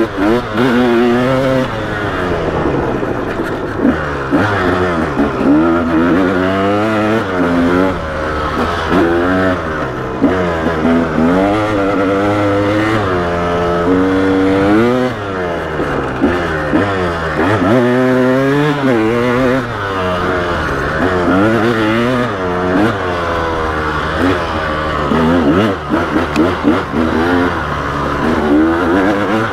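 2012 KTM 300XC dirt bike's single-cylinder two-stroke engine under way on a dirt trail, revving up and dropping back over and over as the throttle is worked.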